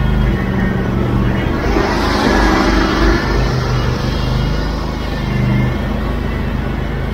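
Engines running steadily on a concrete pour site, where power buggies are hauling concrete from a mixer truck. A rushing noise swells about two seconds in and fades a couple of seconds later.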